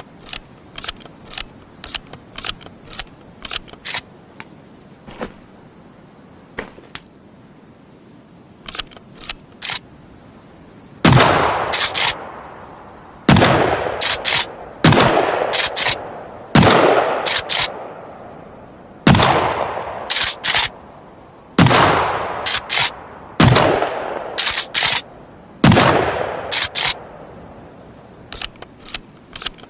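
Shotgun sound effect: a run of scattered sharp clicks, then eight loud shotgun blasts about two seconds apart. Each blast has a long echoing tail and is followed by a quick pair of clicks, and more scattered clicks come near the end.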